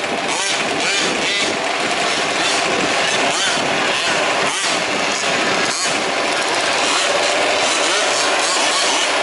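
Several small two-stroke petrol engines of 1/5-scale remote-control 4WD trucks running together, their pitches rising and falling with the throttle.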